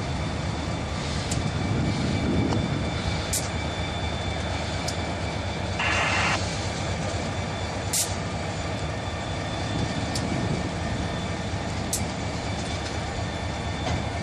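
EMD SD40-2 diesel locomotive rolling slowly past, its 16-cylinder two-stroke engine and wheels giving a steady low rumble, with a few sharp clicks and a brief higher-pitched tone about six seconds in.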